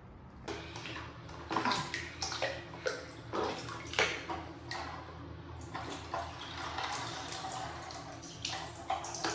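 Water splashing and sloshing in irregular strokes, with a steadier run of water in the second half.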